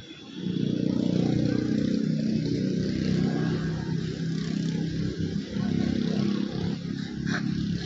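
A motor vehicle's engine running steadily close by, starting loudly about half a second in.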